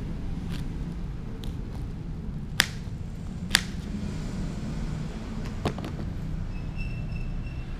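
A knife cutting slices off a raw potato held in the hand: a few sharp, crisp clicks spread through the middle as pieces snap off. Under them runs a steady low background rumble.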